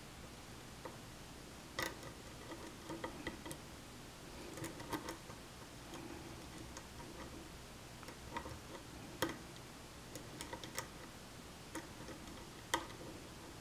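Lock pick and tension wrench working the pins of a challenge-lock pin-tumbler cylinder: faint, irregular light metallic clicks and ticks as the pins are probed, with no pin setting.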